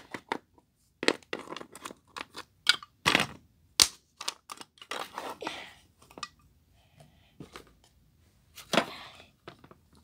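Irregular clicks and taps of small plastic toy pieces and bottle caps being picked up and set down on a dollhouse, with short bursts of rustling between them.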